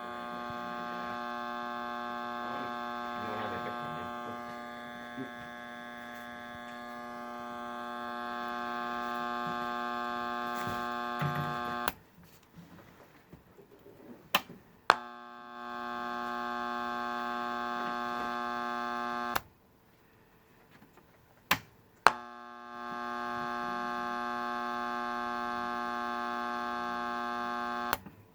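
Small electric motor running with a steady pitched hum, switched off and on with sharp clicks: it runs for about twelve seconds, stops, starts again for about four seconds, stops, then starts once more and is clicked off near the end.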